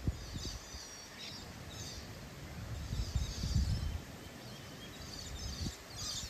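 Birds chirping in short repeated calls over an open rural setting, with low gusts of wind buffeting the microphone, strongest a few seconds in.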